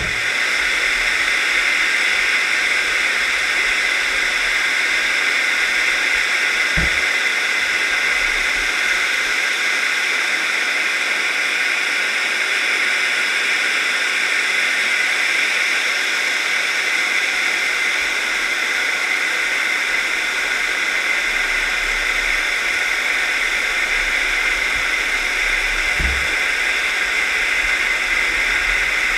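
Steady hiss of water flowing past a GoPro in its underwater housing as it is towed along the seabed on a scallop dredge, with two brief low knocks, about seven seconds in and near the end.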